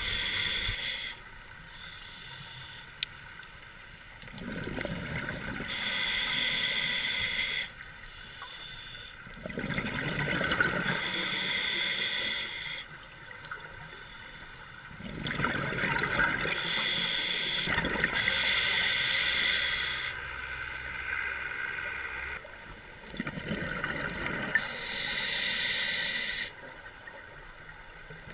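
Scuba diver breathing through a regulator underwater: each exhalation gives a burst of bubble noise lasting a few seconds, alternating with quieter stretches, about every five to six seconds. A single sharp tick about three seconds in.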